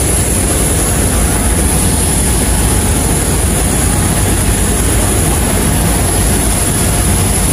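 Loud, steady roar of jet aircraft noise on an airport apron, unchanging throughout.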